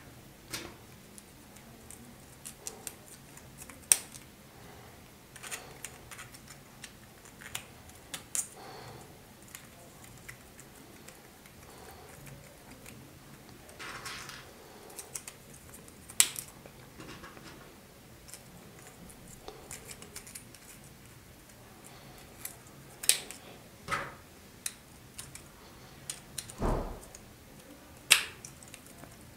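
3D-printed plastic gear-star pieces clicking and clattering as small connectors and gears are picked up and pressed together by hand, in irregular sharp clicks, with one duller thump near the end.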